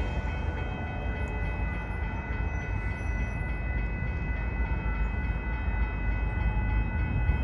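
Union Pacific intermodal freight train approaching: a steady low rumble from its diesel locomotives, with several steady high ringing tones held throughout.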